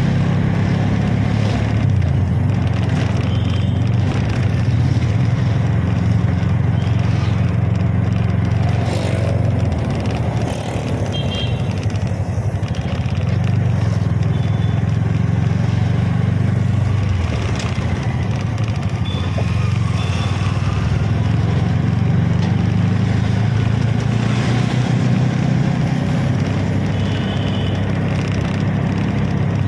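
Auto rickshaw's small engine running as it drives along a city street, a steady low drone that eases off a couple of times, amid passing motorbike and scooter traffic.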